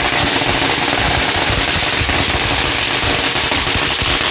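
A string of Chinese firecrackers going off: a rapid, continuous crackle of bangs, many per second, without a break.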